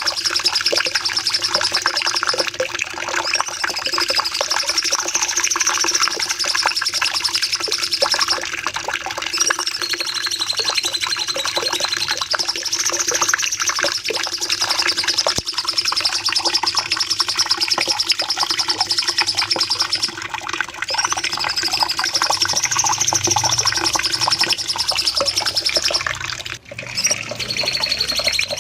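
A Cucak Cungkok singing long, unbroken phrases: a dense, rapid, high trill that swells up and down in pitch, the same pattern returning about every eight seconds, over a steady low hum. The song drops out for an instant near the end.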